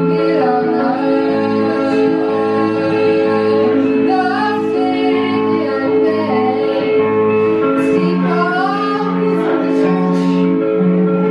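Music: a woman singing a melody over long, held accompanying chords.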